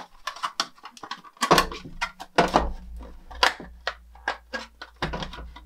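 Irregular clicks and knocks of hard plastic as a toy dollhouse kitchen cabinet is handled and its back panel is pushed and pried at; the panel is stuck and not yet coming out.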